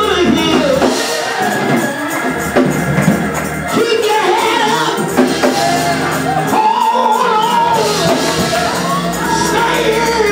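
Gospel church music: a jingled tambourine keeps a steady beat over held keyboard chords, while a man's voice sings with long, sliding pitches into a microphone.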